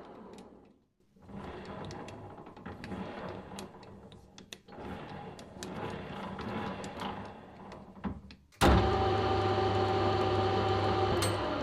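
Scattered clicks and rattles of metal parts being handled, then the lathe's electric motor switches on suddenly a little over 8 seconds in and runs with a steady hum and whine.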